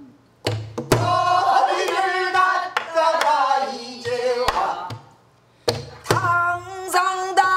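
A woman singing pansori, holding and bending long notes, while beating her own buk barrel drum with a stick in pyeongjungmori rhythm; sharp rim-and-stick strikes and low drum thuds fall between her lines. The singing breaks off for about a second halfway through.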